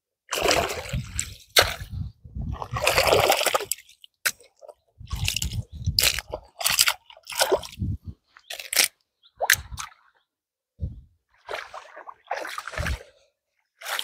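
Water splashing and sloshing in irregular bursts, with some crunching.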